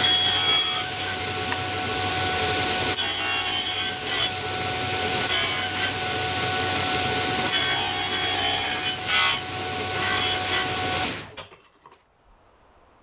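Large woodworking saw running while mitring wooden sides at 45 degrees, a steady machine noise with louder swells as the blade cuts. It stops abruptly near the end.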